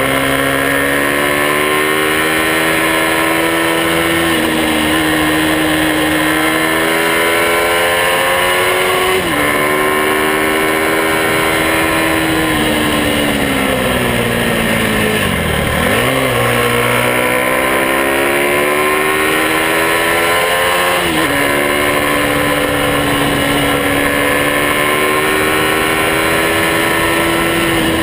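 Small motorcycle engine running under way, its pitch slowly rising and falling with the throttle, with sharp drops in engine speed three times, the deepest about halfway through.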